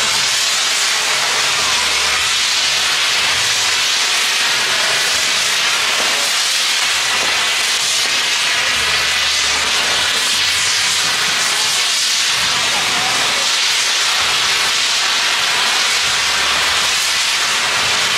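Fireworks figure burning on a tall frame: its fountains and spinning pinwheels give a steady, loud hiss of spraying sparks.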